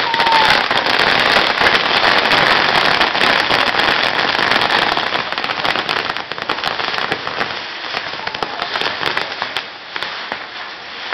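Castillo fireworks tower burning: a dense, loud crackle and hiss of sparks packed with sharp pops. It eases off over the last few seconds.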